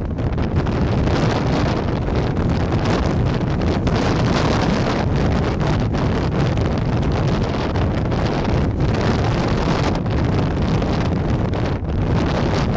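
Wind buffeting the microphone: a loud, steady rushing and rumbling noise that flutters slightly throughout.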